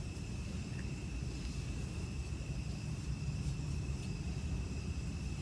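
Steady background noise: a low rumble with a constant thin, high-pitched whine over it.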